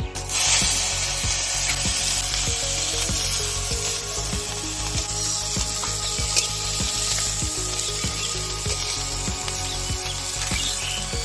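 Food sizzling in hot oil in a pan. The sizzle starts suddenly at the beginning, as if the food has just gone in, and keeps on steadily.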